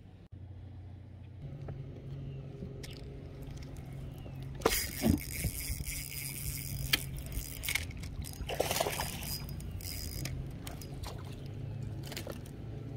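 Water splashing and sloshing in two spells, about five and about nine seconds in, over a steady low hum.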